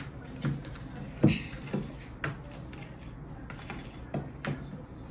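Kitchen bowl and utensils knocking and clattering on a counter: a handful of short, irregular knocks, the loudest about a second in.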